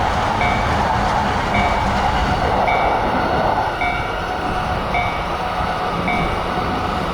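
Railroad crossing warning bell dinging steadily at about two dings a second, over the steady rumble of a passing train.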